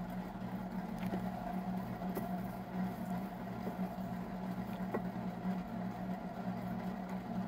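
Steady low mechanical hum of room background noise, with a few faint brief clicks and taps from small craft pieces being handled.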